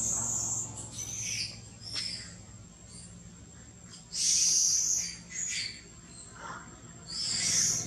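Several short, high-pitched animal calls. The two loudest come about four seconds in and near the end, over a low steady hum.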